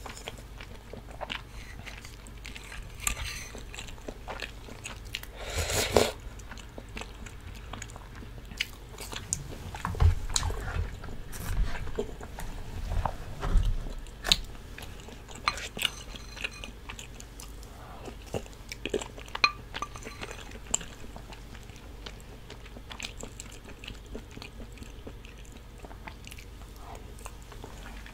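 Close-miked chewing of tteokbokki (chewy rice cakes in sauce), with many small wet mouth clicks and a few louder bites along the way.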